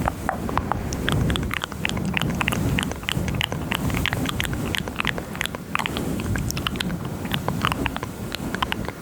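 Wet mouth clicks and smacks, many in quick irregular succession, very close to a high-gain microphone, over a steady low rustling.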